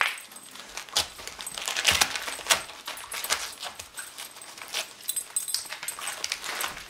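Wrapping paper crinkling and tearing as a Siberian husky rips open a wrapped Christmas gift with its mouth, in irregular rustles and rips.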